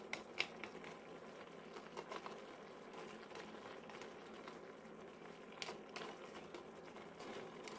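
Blue crabs in coconut milk simmering faintly in a frying pan, with a few light knocks and scrapes of a wooden spoon stirring them.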